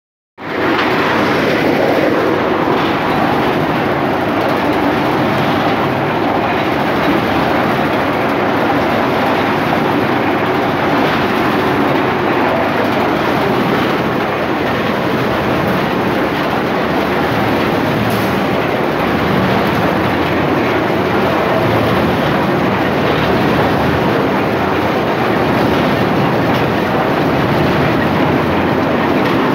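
Areca nut processing machine running with a steady, even rattling clatter that starts abruptly at the very beginning.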